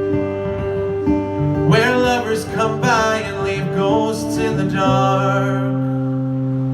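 Live folk band ending a song: strummed acoustic guitar with a voice singing the last words, then a final chord held and left ringing from about five seconds in.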